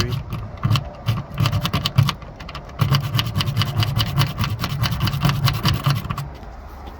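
Car door lock being worked by hand just after a spray of penetrating lubricant: quick metallic rattling and clicking, at its thickest from about three to six seconds in at roughly ten clicks a second.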